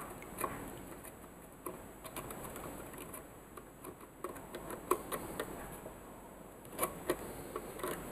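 Faint, irregular clicks and scrapes of a soldering iron tip working against a metal terminal, pushing a desoldered wire off the lug.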